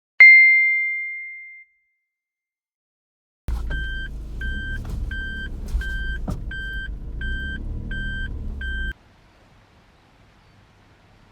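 A single bright chime rings and fades over about a second and a half. A few seconds later a car's engine runs low under its reversing beeper, which beeps steadily about eight times before engine and beeps cut off suddenly.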